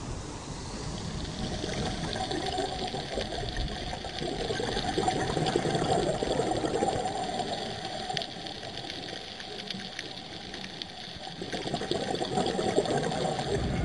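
Muffled water noise picked up by a camera underwater: a steady wash with a few faint ticks.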